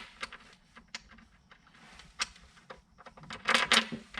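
Light clicks and knocks of hands working a fridge slide and fitting a bolt and nylon lug, with a busier clatter of knocks near the end.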